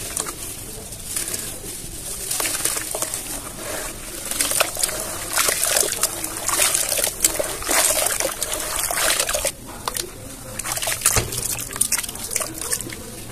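Hands crumbling a soft lump of dry cement and working it into water in a plastic tub: dense crackling and crunching with water sloshing and trickling. It is busiest in the middle and eases off about ten seconds in.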